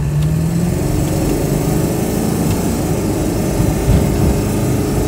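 Ford 7.3 L Power Stroke turbodiesel V8 running steadily as the truck drives, mixed with road and wind noise.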